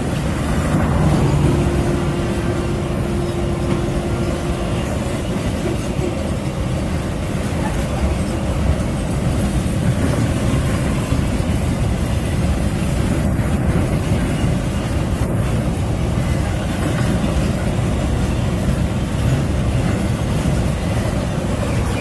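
Container freight wagons rolling past close by: a steady, loud rumble of steel wheels on the rails.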